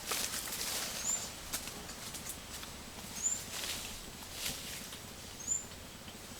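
Soft scattered clicks and crackles, with a short high chirp repeating about every two seconds, three times.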